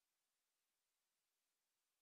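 Near silence: only a very faint steady hiss.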